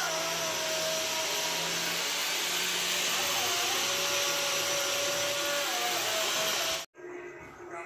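An electric power tool running steadily at speed, with a faint whine that wavers slightly in pitch. It cuts off abruptly about seven seconds in, and quieter music follows.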